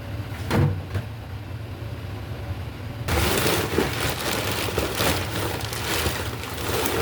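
Water running and splashing, starting suddenly about three seconds in over a low steady hum, as the cleaned fish is rinsed.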